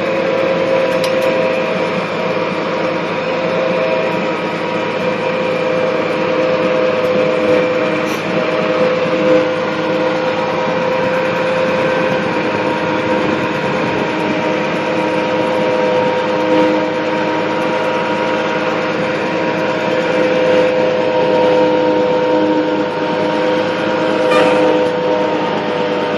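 Farmall 706 tractor engine running at a steady speed under load while towing a trailer-mounted sawmill, heard from the driver's seat as an even, unbroken drone.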